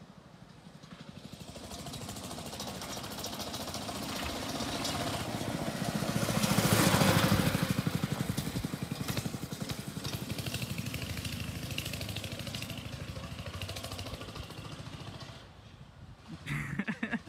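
Homemade motorbike powered by a Honda G200 single-cylinder stationary engine riding past: the engine note grows louder as it approaches, is loudest about seven seconds in as it passes, then fades as it moves away.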